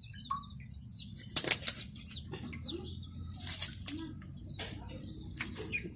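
A plucked duck carcass being handled and pulled apart by hand, giving several sharp wet snaps and slaps, the loudest about a second and a half in and again past three and a half seconds. Small birds chirp briefly in the background.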